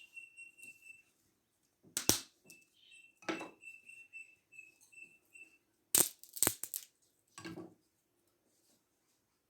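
Five sharp cracks and knocks, two about two seconds in and a closer pair about six seconds in. Between them runs a faint high-pitched peeping, repeated about five times a second.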